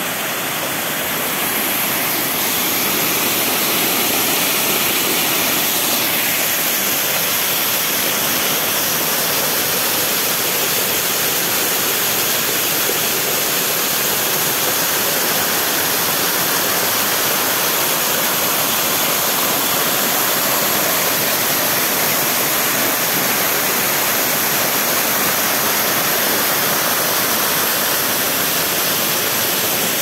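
Waterfall: a loud, steady rush of falling water.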